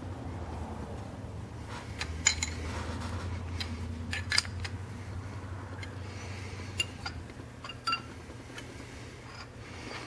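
Steel wrench and injector-puller tools clinking against the injector hold-downs and valve train of a Cummins cylinder head: a handful of sharp, separate metal clinks spread through, over a steady low hum.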